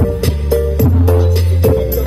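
Dance music played loud through a large stacked outdoor 'horeg' sound system, with heavy sustained bass notes, a repeating melodic figure and a steady beat of about four hits a second.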